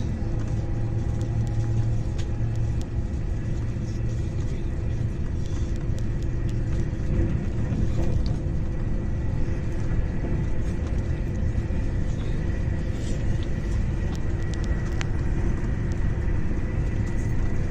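Italo high-speed electric train running, heard from inside the carriage: a steady low rumble with a faint, steady high tone and occasional light clicks.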